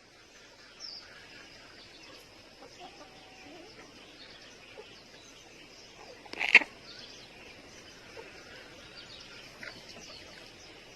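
Quiet chicken-yard sounds: faint chirps and soft calls from chickens over a low background hiss, with one short, much louder sound about six and a half seconds in.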